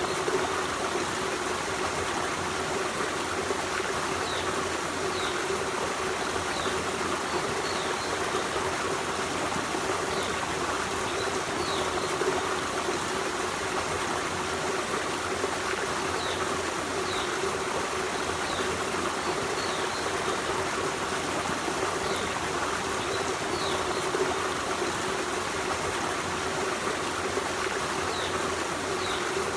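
Forest stream running steadily over rocks, a constant rush with trickling, and faint short high notes here and there.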